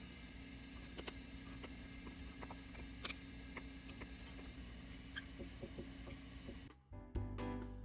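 Faint scattered clicks and light patters as water and minced green onion are tipped from a small glass cup into a glass bowl of soy sauce, over a steady low hum. Background music starts near the end.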